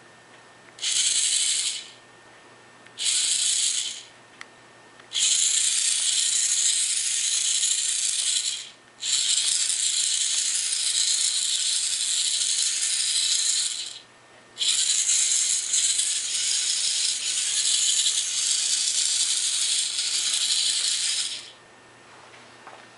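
Electric drive motors of a small Arduino robot car running in bursts as it is steered by IR remote commands: two short bursts of about a second, then three long runs of several seconds with brief stops between them.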